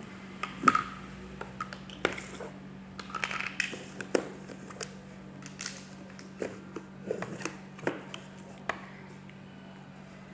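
Plastic Play-Doh toys and tools being handled, giving irregular clicks and taps over a steady low hum.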